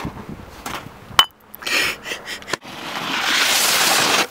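A sharp click about a second in, then a brief rough noise. Near the end comes the loudest part, the hiss of snow spraying under a snowboard's edge as it carves up a snow wall, swelling and then cutting off.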